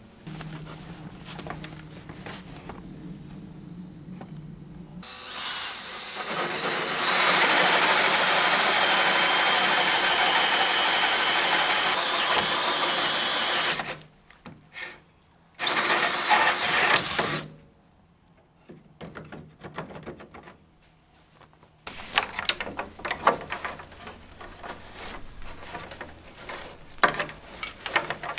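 Cordless drill with a hole saw boring through a wooden wall: a long run starting about five seconds in and lasting about eight seconds, then a second burst of about a second and a half. Near the end, a bundle of cables scrapes and rustles as it is pushed through the new hole.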